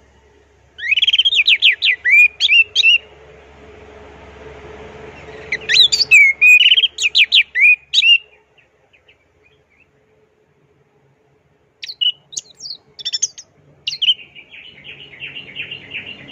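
Orange-headed thrush singing: two bursts of fast, rapidly repeated whistled notes, each about two seconds long, then after a pause a few short scattered notes and a fast buzzy trill near the end.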